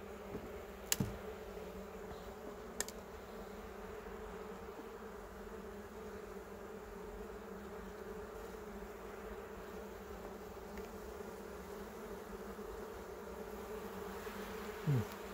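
Honeybees buzzing steadily from an open hive as its frames are lifted out for inspection, with two sharp clicks in the first few seconds. Near the end a single louder buzz falls in pitch as a bee passes close.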